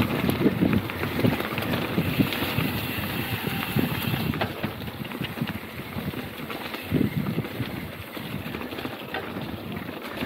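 Mountain bike rolling over a rough macadam track: tyres crunching on loose stone and the bike rattling in dense, irregular clicks, with wind rumbling on the microphone. A little louder in the first few seconds.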